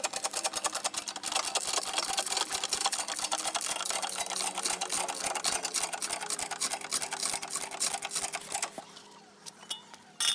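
Low-profile hydraulic floor jack being pumped to lift a car: rapid, even clicking and rattling from the pump and handle, which fades out about nine seconds in. A single sharp clack comes near the end.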